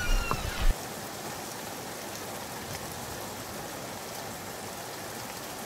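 Steady hiss of rain. It follows a few loud low bumps and a short falling squeak in the first second, which stop abruptly.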